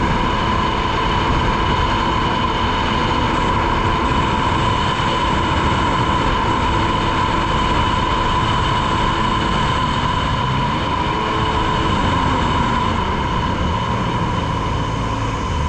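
A 2003 Polaris Virage personal watercraft running steadily at speed, its engine and newly replaced jet pump giving a steady high whine over a rumble. The engine note briefly rises and falls about eleven seconds in. Running well on the new jet pump, in the rider's words "running good".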